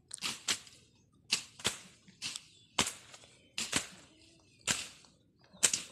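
A machete slashing through weeds and brush: sharp swishing chops in quick succession, often in pairs, about a dozen strokes.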